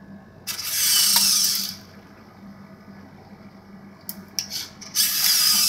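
Hobby servo motors in an EMG-controlled, 3D-printed InMoov robotic hand whirring in two bursts of about a second, one near the start and one near the end, as they pull the finger tendons. A few clicks come just before the second burst, over a low steady hum.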